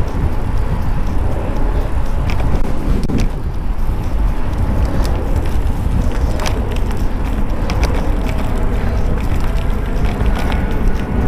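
Wind buffeting a helmet-mounted action camera's microphone while cycling at speed, with scattered clicks and rattles from the ride. Near the end a steady whine comes in from a large airliner's jet engines approaching low to land.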